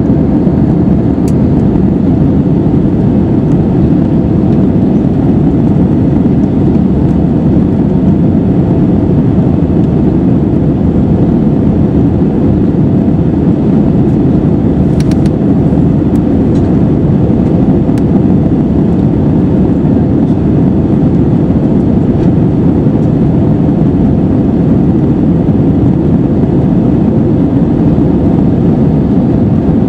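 Steady cabin noise inside an Airbus A320 in the climb: the two CFM56-5B jet engines running and air rushing past the fuselage, a deep, even drone heard from a window seat over the wing.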